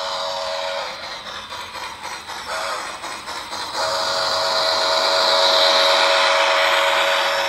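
Lionel HO Polar Express locomotive's sound system, playing from the tender speaker: a chime steam whistle over steam hiss. One blast ends about a second in, a short toot follows, then a long blast starts about four seconds in.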